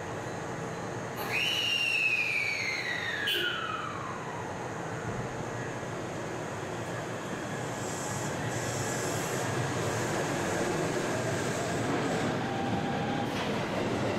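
Kintetsu 7000 series electric train departing an underground platform. A high tone falls in pitch over about three seconds, and a click and a short hiss follow. Near the end a motor whine rises in pitch as the train pulls away, over the steady rumble of the station.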